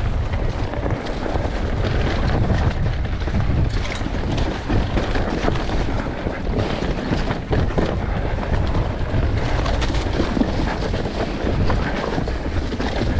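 Onboard sound of an enduro motorcycle riding over rough ground: steady engine and wind noise with frequent knocks and rattles.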